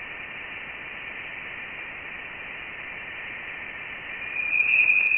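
Voyager 1's recording of electromagnetic waves from interstellar space, converted into audio: a steady hiss with a thin high tone running through it. The tone swells louder about four seconds in.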